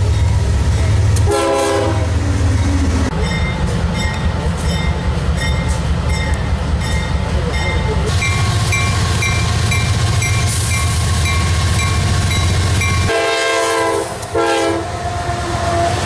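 CSX diesel freight locomotives passing close by, a heavy low engine rumble throughout. A short air horn blast comes about a second and a half in, and two more blasts near the end. In between, a rhythmic ringing about twice a second that fits the locomotive bell.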